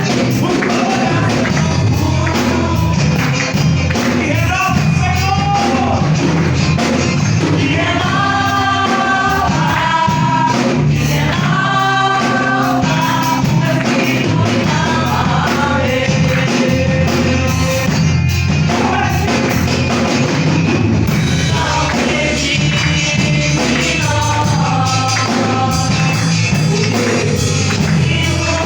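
Church praise band playing a gospel song, with voices singing together over tambourine and a driving beat.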